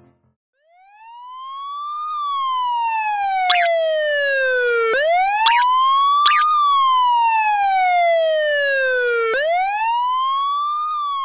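Siren sound effect wailing, starting just under a second in. Each cycle rises quickly, then falls slowly, about every four and a half seconds, and it goes through three cycles. Three brief high chirps cut through the wail in the middle.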